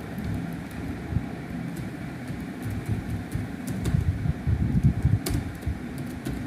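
Computer keyboard keys clicking irregularly as text is typed, over a steady low background rumble.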